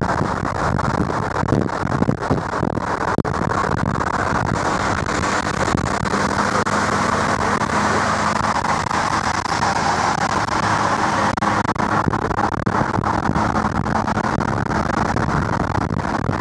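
Steady road and wind rush heard from inside a car travelling at dual-carriageway speed, with a low engine hum that is clearer around the middle.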